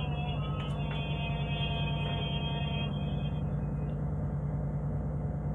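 A boat engine running steadily, a constant low drone with an even fast pulse.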